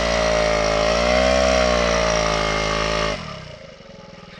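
Small scooter engine revving hard under load, its pitch wavering up and down as it is pushed up a muddy slope. About three seconds in the revs drop suddenly to a quiet, low idle.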